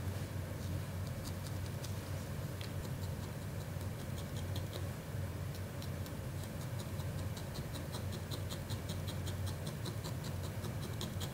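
Felting needle punching repeatedly into felting fiber: a run of quick, even ticks, several a second, that gets denser in the second half.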